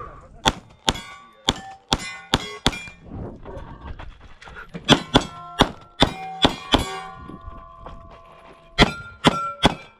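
Rapid 9mm Glock pistol shots at steel targets, the hits answered by the ringing of the steel plates. The shots come in three quick strings, about six, then seven, then four, with short pauses between them.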